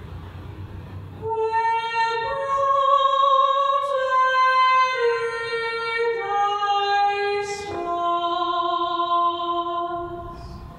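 Soundtrack music: a female voice singing a slow melody in long held notes, starting about a second in and fading away near the end.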